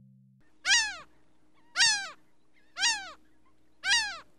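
Seagull calling: four loud, falling cries about a second apart.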